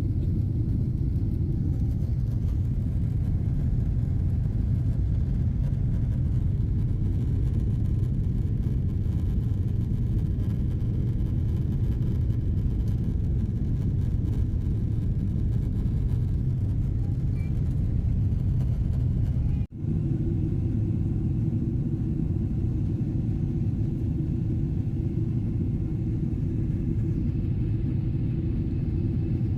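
Steady low rumble of an airliner's engines and airflow heard from inside the passenger cabin. It drops out abruptly for an instant about twenty seconds in, then resumes.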